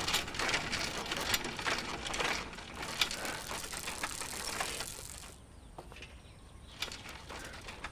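Rapid, irregular clicking and rattling that thins out to scattered clicks about five seconds in.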